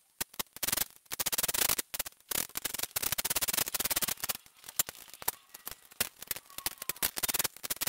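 Ratchet wrench clicking in quick bursts with short pauses as the rocker arm nuts on a small-block Chevy cylinder head are backed off.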